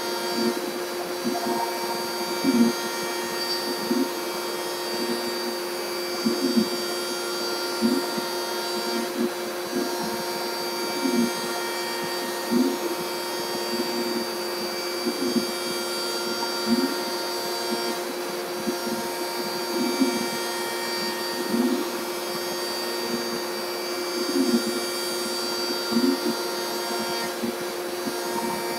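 CAMaster Stinger I CNC router cutting plastic with a 3/8-inch end mill: the router motor runs at a steady pitch with dust collection running. A short swell in the cutting sound recurs every one and a half to two seconds as the head works over the piece.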